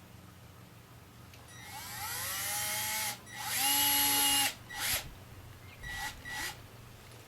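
Power drill putting the hanging screw into a tree, run in several pulls of the trigger: a whine rising in pitch, then a louder steady run, then a few short bursts near the end.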